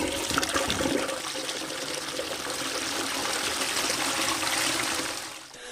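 Running water sound effect: a steady, even rush of flowing water that fades out about five seconds in.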